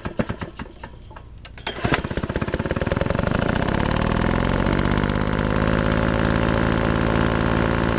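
An engine sputtering and firing unevenly for about two seconds, then catching and running fast and steady, rising a little in pitch before it holds.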